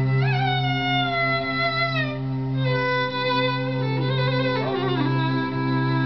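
Bowed violin playing slow, sustained melody notes that slide between pitches, over a steady low drone that holds throughout.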